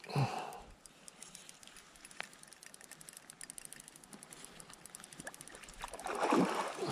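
Spinning fishing reel ticking rapidly while a hooked fish is played that won't come in. A short knock just after the start, and a louder rush of noise near the end.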